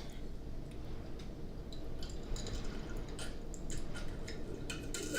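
Close-miked eating of a seafood boil: soft wet chewing and mouth sounds, with a scatter of sharp little clicks that grow more frequent in the second half.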